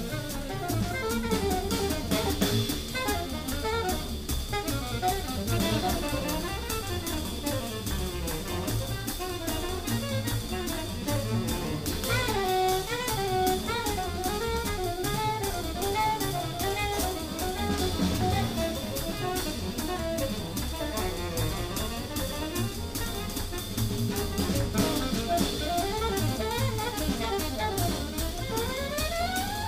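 Small jazz group playing live: a drum kit played with sticks, with busy cymbal and snare strokes, under a wavering melodic lead line that bends up and down.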